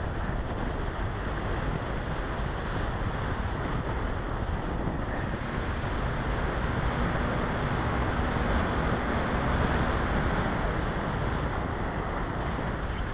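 Airflow rushing over the microphone of a small keychain camera mounted on an RC model glider in flight, a steady noisy rush that swells about halfway through, with a faint low hum under it for a few seconds.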